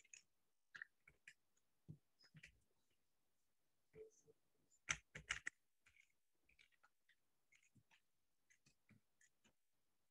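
Soft, sparse keystrokes on a computer keyboard, with a quick run of louder keys about five seconds in.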